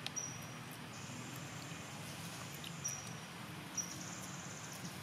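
Outdoor ambience of insects trilling in high, pulsing stretches that start and stop, with a few short high chirps and faint clicks.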